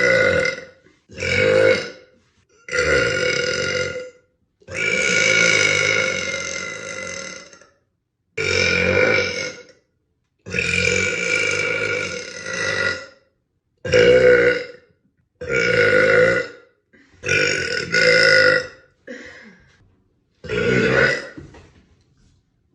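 A string of about ten loud, drawn-out burps from women, one after another with short silent gaps between them. The longest lasts about three seconds, and a last short one near the end is fainter.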